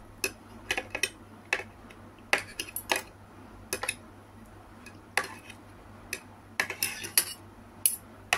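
Metal spoon and fork clinking and scraping against a plate while eating: many sharp, irregular clicks, some in quick clusters.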